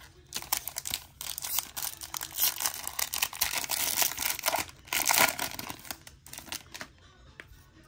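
Wrapper of a Topps baseball card pack crinkling and tearing as it is ripped open by hand, in a dense crackle that is loudest about five seconds in. Then fainter rustles follow as the cards come out.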